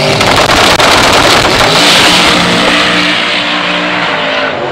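Chevrolet V8 drag car launching off the start line and accelerating hard down the strip, very loud at first and fading somewhat near the end as it pulls away.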